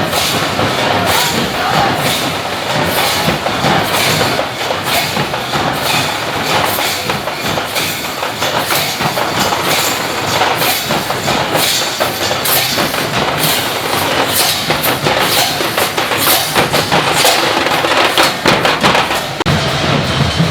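Matua harinam kirtan percussion: drums and metal hand cymbals beaten together in a steady, dense beat.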